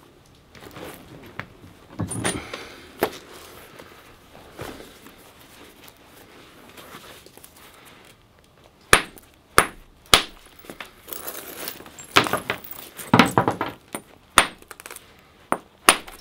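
Hammerstone striking a flint nodule in hard-hammer flint knapping: a series of sharp clicking knocks, mostly in the second half, as flakes are struck off to reshape the working end of the flint.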